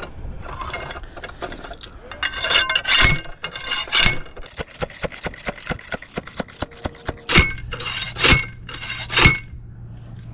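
Metal clinking and rubbing as a parasol angle holder is fitted onto a fishing platform and clamped. A quick run of sharp clicks comes in the middle, then three loud metallic knocks about a second apart near the end.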